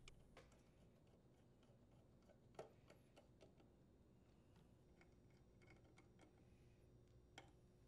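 Near silence with a few faint clicks of a screwdriver and small metal parts being handled as screws are driven into the muffler cover, the clearest about two and a half seconds in and again near the end.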